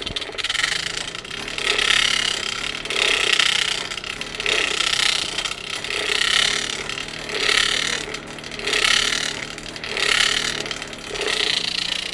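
Coal forge blower pushing air into the fire, its whir swelling and fading in a regular rhythm about every second and a half. The blower is in poor shape and needs work.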